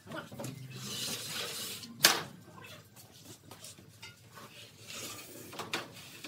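Wooden pallet set down on a concrete floor, landing with one loud knock about two seconds in, with softer wooden knocks and rustling around it.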